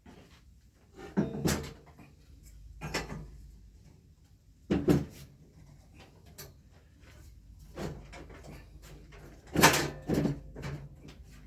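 Irregular knocks and clunks of a ski lift chair leg being worked onto the seat frame: about eight sharp hits, with the loudest pair near the end. The legs are a tight fit.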